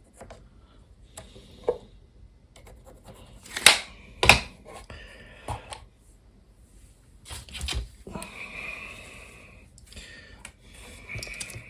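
Tools and the template being handled on a piece of sheetrock while lines are marked out: scattered clicks and two sharp knocks about four seconds in, then short scratchy strokes of marking across the board later on.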